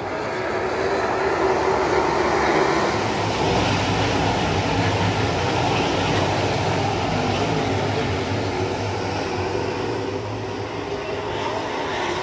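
A field of 410 winged sprint cars running on a dirt oval, their V8 engines blending into one steady engine noise that swells a little about two seconds in.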